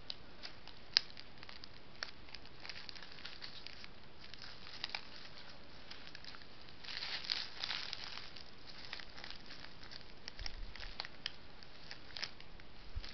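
Faint scattered clicks and crackling rustles over a steady hiss, with a denser patch of rustling about seven seconds in.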